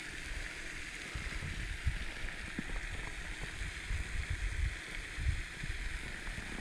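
Quiet handling noise in a kayak: low, uneven bumps and knocks over a steady faint hiss, with one sharp click at the very end.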